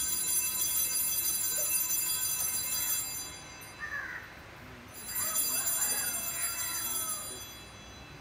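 Altar bells ringing with a shimmer of many steady high tones, marking the elevation at the consecration of the Mass. The ringing stops about three seconds in and rings again from about five to seven and a half seconds in.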